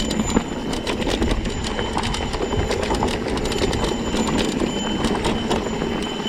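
Mountain bike rolling over rough, rocky dirt trail: tyres crunching and the bike's frame and components rattling with a constant stream of small clacks and knocks.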